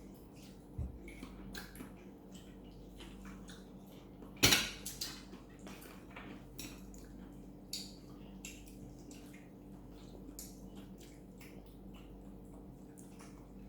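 Dishes and cutlery clinking at a meal: scattered light clicks of utensils against plates, with one louder clatter about four and a half seconds in, over a faint steady hum.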